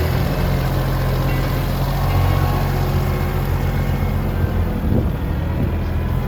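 Farm tractor engine running steadily under load during tillage, a constant low drone.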